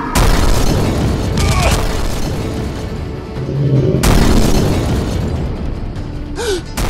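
Cinematic explosion sound effects over background music: a big boom just after the start and another about four seconds in, each rumbling away, with a third sudden hit near the end.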